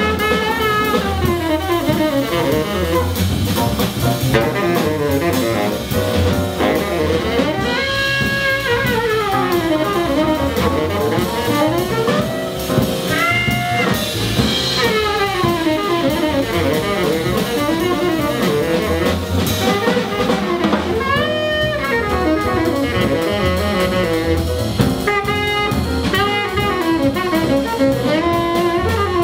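Live jazz: a tenor saxophone plays a solo in quick, running lines over upright double bass and drum kit, with piano in the band.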